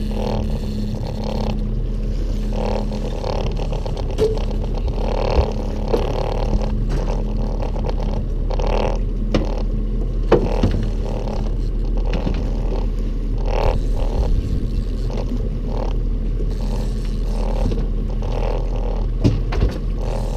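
Boat motor running steadily under a constant low hum, with scattered short knocks on the hull.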